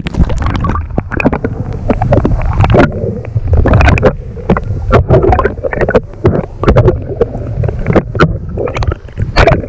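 Muffled underwater sound from a camera held below the surface: water sloshing with irregular knocks and bumps against the housing, the high end dulled while submerged. A sharp splash-like crack near the end.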